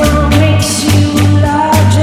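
Soundtrack music with a steady drum beat and a pulsing bass line, a held melody line above.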